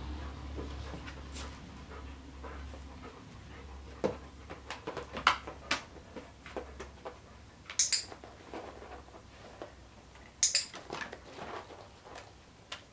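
A dog moving about in a plastic laundry basket: scattered knocks, scrapes and clatters of its paws and claws against the plastic, with several sharp clicks among them.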